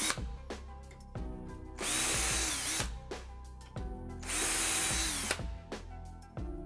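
Cordless drill with a self-centering bit running in two short bursts of about a second each, about 2 and 4 seconds in, drilling pilot holes through a metal bracket into a wooden door jamb. Background music plays underneath.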